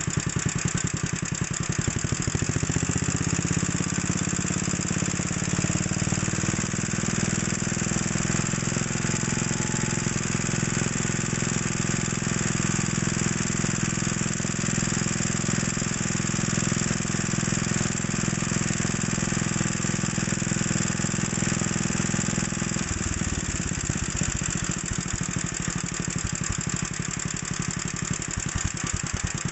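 Small old air-cooled stationary engine idling very slowly, each firing stroke heard separately while its throttle is held down below the governor's setting. About two seconds in it picks up to a smoother, faster idle, and around two thirds of the way through it drops back to the slow, separate beats.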